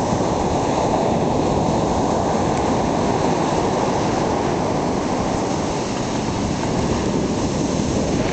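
Steady low rush of ocean surf on the beach, mixed with wind rumbling on the microphone.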